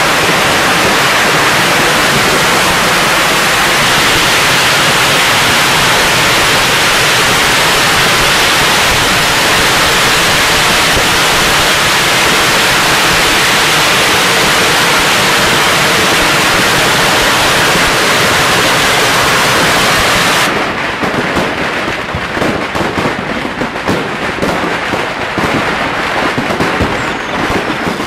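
A long string of firecrackers going off as one continuous, dense crackle. About twenty seconds in it drops away abruptly to scattered pops, bangs and crackling from fireworks.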